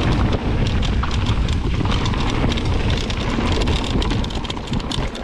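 Mountain bike rolling fast down a rocky gravel trail, heard from a handlebar-mounted action camera: wind rumbling on the microphone over tyre noise, with many quick clicks and rattles from stones and the bike. It eases off a little near the end.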